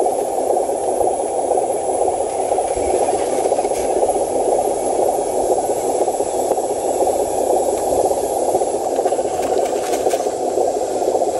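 Steady whirring of the electric motor and gear drive of an RC Hino 500 dump truck as it climbs a dirt slope carrying a load of soil.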